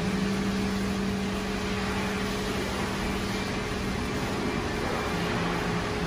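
Ecotechnics ECK Twin Pro air-conditioning service machine running its automatic 'emptying hoses' stage: a steady mechanical hum with a hiss as its compressor draws the R1234yf refrigerant back out of the service hoses. The low hum drops slightly in pitch near the end.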